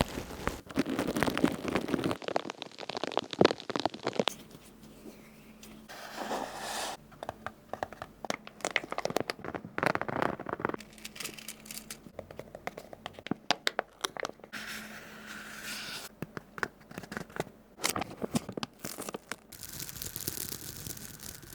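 A run of close-miked ASMR trigger sounds that change every few seconds: crinkling, crunching and scraping, with sharp taps and clicks.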